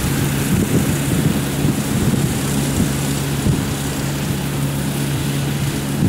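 Rice combine harvester's engine running at a steady, unchanging pitch as the machine cuts lodged rice in a wet paddy.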